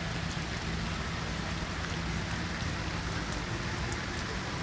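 Heavy rain falling: a steady hiss with scattered sharp drop ticks.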